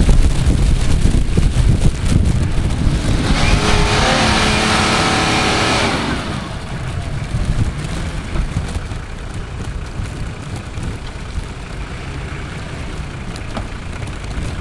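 Off-road 4x4 SUV's engine running under load as it climbs over dirt mounds. It revs hard for about three seconds near the middle, then drops back to a lower, steady running.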